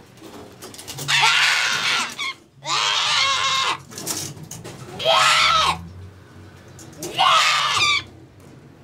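Blue-fronted Amazon parrot squawking: four loud, harsh calls, each about a second long, with short pauses between them.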